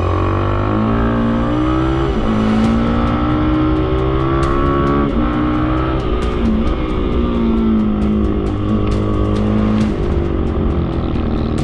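Mini racing motorcycle engine heard on board, its pitch climbing through the revs, breaking at gear changes about two and five seconds in, and dropping as the bike slows about six seconds in.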